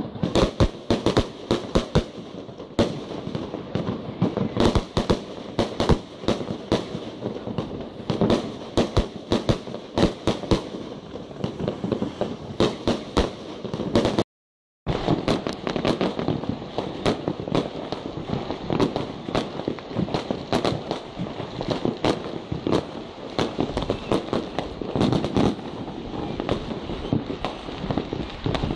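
Fireworks going off continuously: rapid sharp bangs of bursting aerial shells and firecrackers over a constant crackle. The sound drops out completely for about half a second a little after halfway, then returns as a denser crackle with fewer big bangs.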